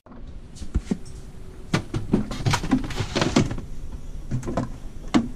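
Refrigerator door open and things being moved on its shelves: a string of knocks and clatters as a plastic food container and other items are shifted and set down, with one more knock near the end.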